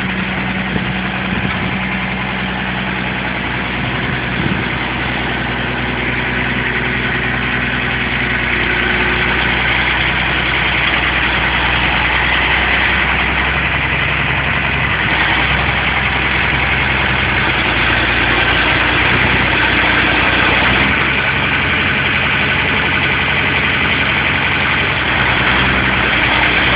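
Hitachi excavator's diesel engine running steadily under light load, growing somewhat louder partway through, its deepest rumble dropping away about three-quarters of the way in.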